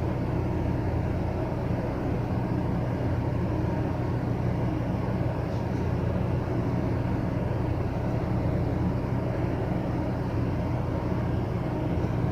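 A steady low rumbling hum with hiss, even in level throughout and with no distinct events.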